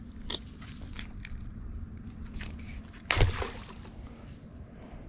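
A blue crab tossed back from a pier lands in the water with a single sudden splash about three seconds in, after a few light clicks of the wire crab net being handled, over a steady low rumble.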